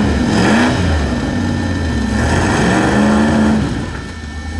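Rock-crawling buggy's engine revving in bursts, its pitch rising and falling several times and easing off near the end.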